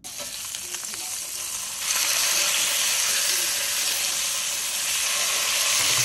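Chops searing in oil in a HexClad hybrid frying pan, a steady hissing sizzle. It starts suddenly and grows louder about two seconds in.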